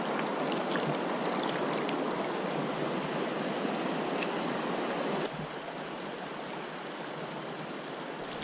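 River current rushing steadily around a wading angler, an even water noise that drops a little in level about five seconds in.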